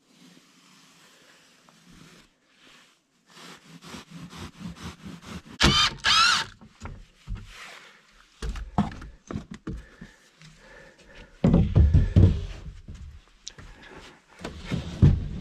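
A long serrated insulation knife sawing through a mineral wool batt in a run of rasping strokes, the two loudest about six seconds in. Knocks and thuds follow as the knife is laid on the wooden framing and the batt is handled.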